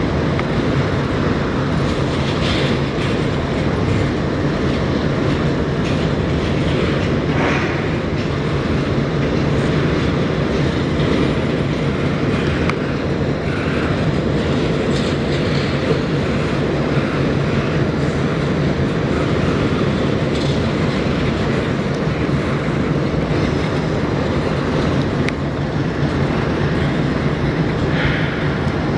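Train rolling by on the rails: a steady, unbroken rumble of wheels on track over a constant low drone.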